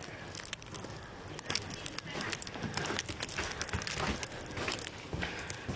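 Outdoor village street ambience: irregular scattered clicks and knocks, with faint voices at times in the background.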